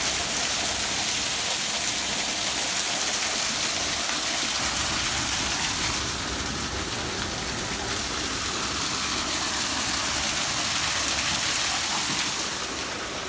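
Small waterfall spilling down a cliff face: a steady hiss and splash of falling water.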